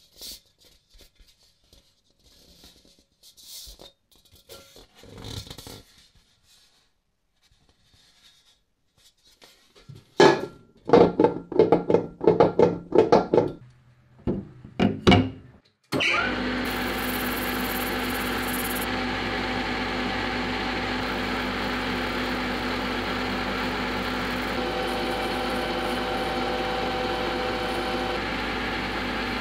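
A thick plastic blank being set into a metal lathe's chuck and clamped, making a run of loud knocks and clunks. About halfway through, the lathe starts and runs steadily with a motor whine, spinning the blank.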